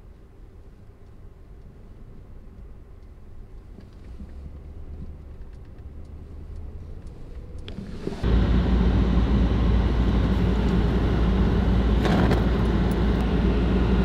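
A faint low hum that slowly grows louder, then about eight seconds in, a sudden cut to the loud, steady rumble of a Ford F-150 pickup running, heard from inside the cab.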